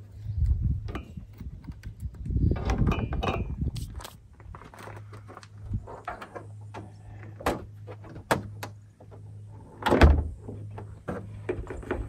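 Clicks, knocks and rattles of hands working around a Jeep Wrangler Rubicon's hood and cable, with one loud metal thunk about ten seconds in as the hood is shut.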